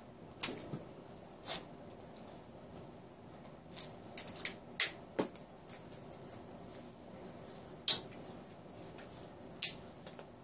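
About ten sharp, irregular clicks and taps, a few of them loud, over a faint steady background.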